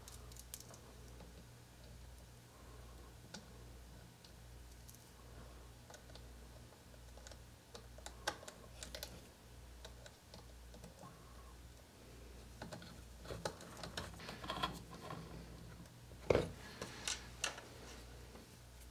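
Faint, scattered clicks and taps of small metal and plastic parts as an aluminium oil-filled shock is screwed onto an RC crawler's suspension mount with a small screwdriver, in small clusters with one louder knock near the end, over a faint low hum.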